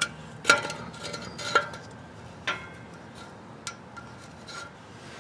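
Light metal clinks as a tape measure is set against the end of a rusted exhaust pipe, each with a short ring. There are about seven, uneven in spacing, and they grow fainter after the first couple of seconds.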